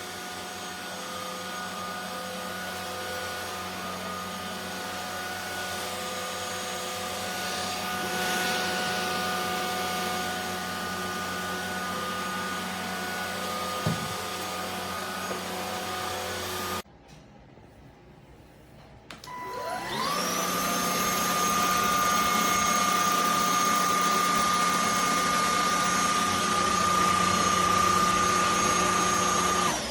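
Cordless stick vacuum cleaner motor running with a steady whine that cuts off suddenly just past halfway. About three seconds later it is switched on again: the whine rises in pitch as the motor spins up, then holds steady and louder, and it winds down at the end.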